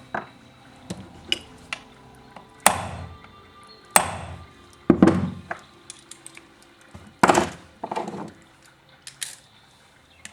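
Sharp metal knocks, about five strong ones a second or so apart, each with a short ringing tail, with lighter clicks between: a stuck part on a chainsaw being struck to free it.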